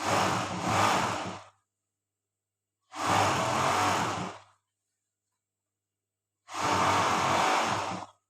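Overlock (serger) sewing machine running in three short bursts of about a second and a half each, a whirring motor buzz with a low hum, stopping completely between bursts as the seam is fed through.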